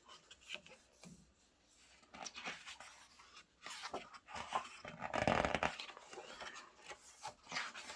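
Pages of a photo book being turned and handled: scattered paper rustles and soft taps, with a louder rustle about five seconds in.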